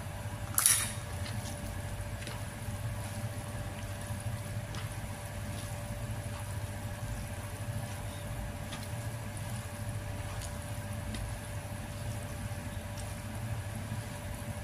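A hand squeezing and tossing chicken intestines wet with lime juice and marinade in a plastic bowl: faint, scattered wet squelches, with one brief louder noise just under a second in. A steady low hum runs underneath.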